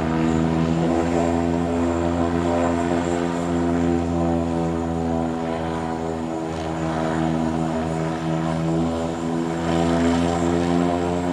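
Engine of a radio-controlled PT-17 Stearman model biplane running steadily in flight, a constant drone at an even pitch that eases slightly in level about six to eight seconds in.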